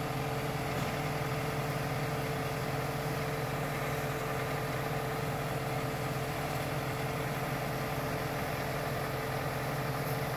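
Small engine driving a Job's tears threshing machine, running steadily at a constant speed.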